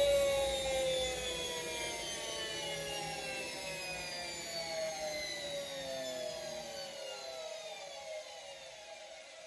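Bosch Maxx WFL1662 washing machine's drum and motor coasting down at the end of a spin: a whine of several tones falling slowly in pitch and fading. This is the spin noise the owner calls horrible.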